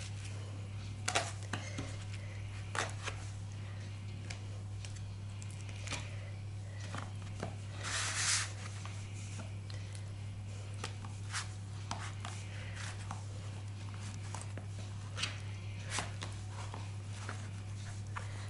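Raw fish steaks being handled and laid into a plastic container: soft handling noises and scattered light taps and clicks against the plastic, with a short rustle about eight seconds in. A steady low hum runs underneath.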